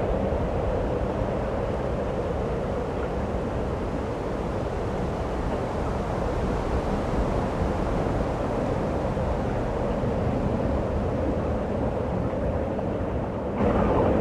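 Steady rushing wind of a snowstorm, with a low rumble; it jumps louder suddenly near the end.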